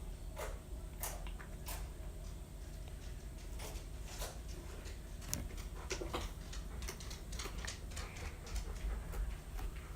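Sticky glue-and-borax slime being mixed and worked, making irregular small clicks and pops.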